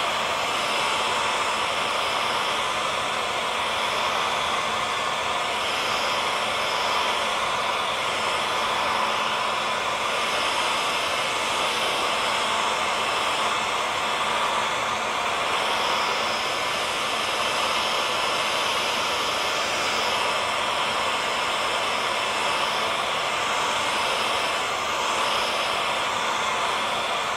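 Hair dryer running steadily: an even blowing hiss with a faint motor hum.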